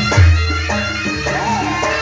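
Live Javanese jaranan music: a nasal, reedy shawm (slompret) melody with bending notes over held gamelan tones and drums, with a deep drum stroke just after the start.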